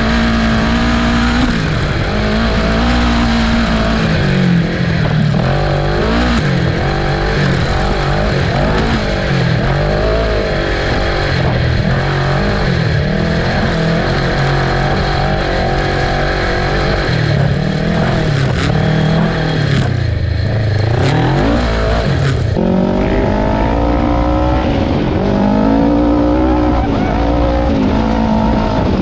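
Kawasaki Ninja 650 parallel-twin motorcycle engine powering an off-road go-kart, running under load with the revs rising and falling again and again. The engine note changes character about two-thirds of the way through.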